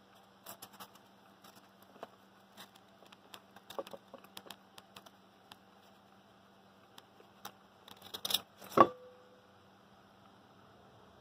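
Handling noise around a small insulated Stirling engine: scattered light clicks and rustling of the cotton insulation, then a scrape and a sharp knock with a brief ringing about nine seconds in.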